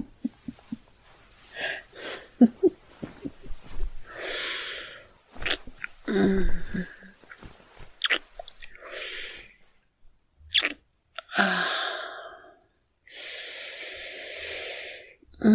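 Close-miked ASMR kissing sounds: soft lip smacks and wet mouth clicks scattered between slow breaths, with a long steady breath near the end.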